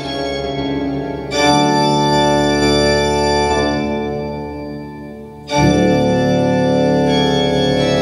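Music with sustained organ-like chords played through a homemade two-way speaker (dome tweeter and woofer in a wooden box, with a homemade capacitor-and-inductor crossover) and picked up by a handheld microphone near it. Loud held chords come in about a second in, die away, then return loud about halfway through.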